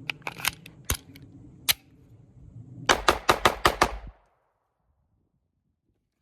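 Semi-automatic handgun firing full metal jacket rounds: a few separate shots in the first two seconds, then a fast string of about seven shots in just over a second, after which the sound cuts off.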